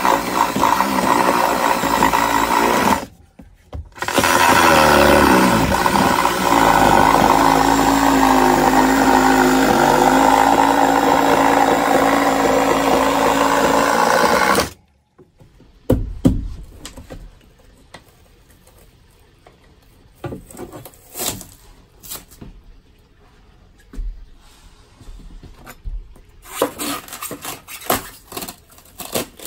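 Cordless reciprocating saw cutting through a plywood floor. It runs in two long stretches, with a short stop about three seconds in, and stops for good about halfway through. After that come scattered light knocks and scrapes as the cut-out piece of floor is worked loose.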